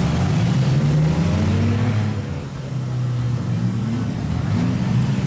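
Demolition derby car engines running and revving, their pitch rising and falling, with a brief lull about two and a half seconds in.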